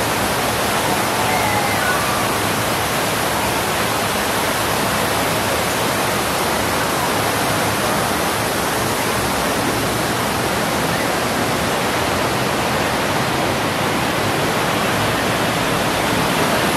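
Steady, even rushing of water from the Poseidon's Fury water vortex tunnel, with no let-up or change.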